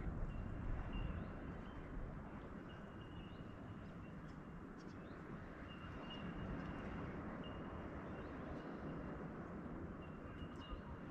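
Quiet outdoor background noise by the water, steady and low, with a bird repeating a short, thin, high note every second or so.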